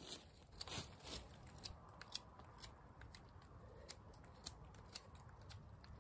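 Faint, irregular sharp snaps and crackles, about ten over six seconds, from dead twigs and dry leaf litter being handled.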